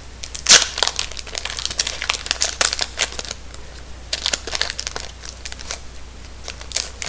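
Wrapper of an Upper Deck Marvel 3D trading-card pack crinkling as it is handled and opened, in irregular bursts, the loudest about half a second in.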